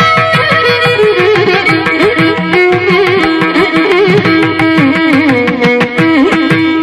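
Background Carnatic-style instrumental music: a melody with sliding, bending notes over a steady drum beat.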